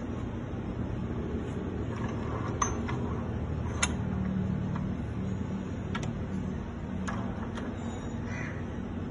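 Scattered sharp metallic clicks and taps from handling the aluminium workpiece and the miter saw's clamps and head, over a steady low hum; the saw motor is not yet cutting.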